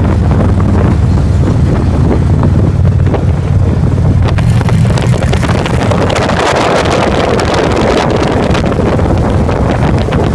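Motorcycle engines droning steadily at road speed, with heavy wind buffeting on the microphone.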